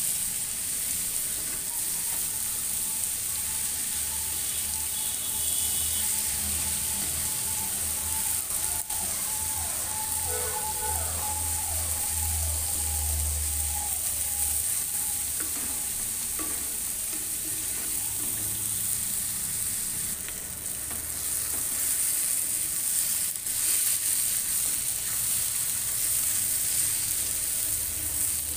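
Chopped bamboo shoot, onion and tomato sizzling steadily as they fry in a kadai, turned over with a spatula that scrapes the pan now and then.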